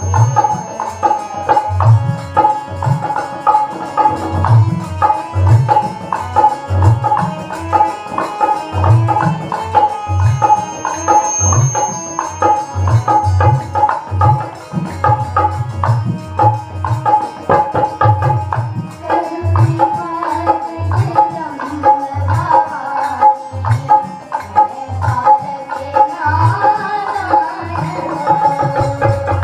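Harmonium playing a melody over a steady hand-drum rhythm, an instrumental passage of a Hindi devotional song with no singing.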